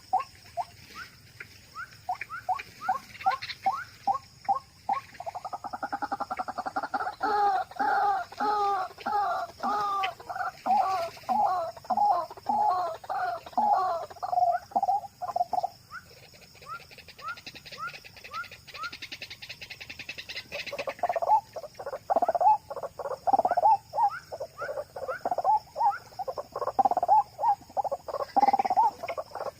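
White-breasted waterhen calling: a long run of repeated harsh "wak-wak" notes. They come a few a second at first, turn into a dense overlapping series from about five seconds in, soften briefly in the middle, and build again over the second half.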